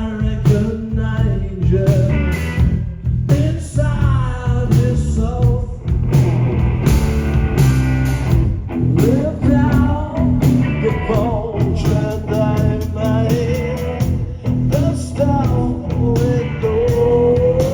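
Live rock band playing: a bending electric guitar lead line over bass and drums, with no let-up.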